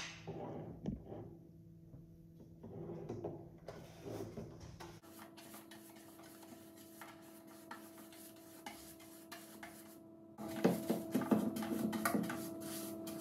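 Paintbrush rubbing and scraping against the inside of a cardboard box in quick repeated strokes as paint is brushed on, the strokes louder near the end. A steady low hum runs underneath from about halfway in.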